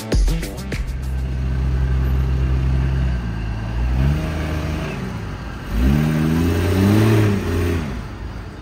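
Off-road 4x4 rock crawler engine running under load as it climbs a rock ledge: a steady hum, a rev rising about four seconds in, then two rev-ups that rise and fall about six to eight seconds in.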